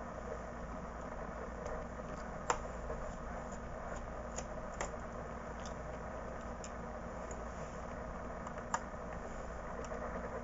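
Small, irregular clicks and ticks from a screwdriver working the screws that hold a laptop's hard drive, a sharper click about two and a half seconds in and again near the end, over a steady background hiss.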